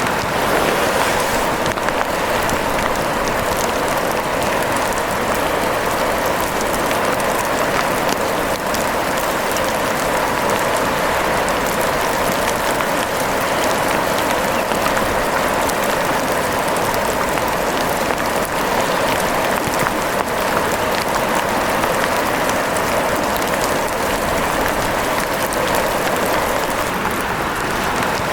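Steady rain falling, a dense, even hiss of countless drop hits.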